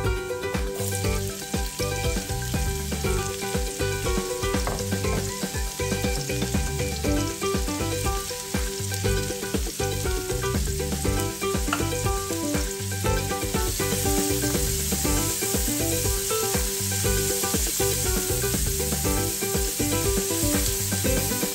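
Chopped vegetables sizzling as they fry in melted margarine in a metal wok. Diced carrots are tipped in partway through, and a spatula stirs and scrapes the pan. Background music with a steady beat plays under it.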